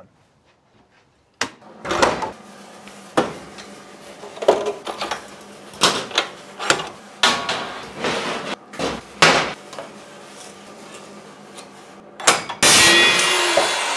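Clicks and clunks of a metal-cutting chop saw's vise clamp being worked and tightened on steel channel. About a second before the end the saw's motor starts up and runs loud and steady.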